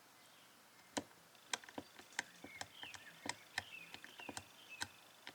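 Master Lock combination lock's dials being turned by hand, giving irregular small sharp clicks, several a second at times.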